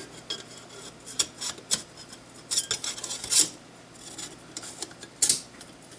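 A rail part being slid into place on a Knights Armament URX 3 handguard, with scraping and a run of short clicks and knocks, the sharpest near the middle and about five seconds in, as it locks in.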